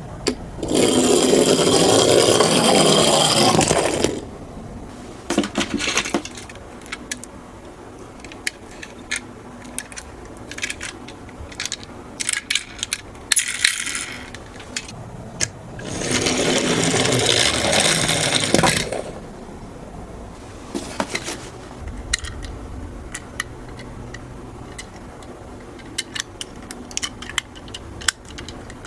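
Miniature toy cars rolling down a slope with a loud rattling run, twice, each about three seconds long. Between the runs come scattered sharp clicks and clacks of the small cars being handled and knocking together.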